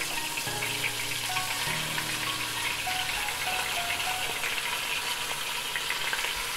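Raw ground beef sizzling and crackling as it fries in the hot inner pot of a Power Pressure Cooker XL, over instrumental background music.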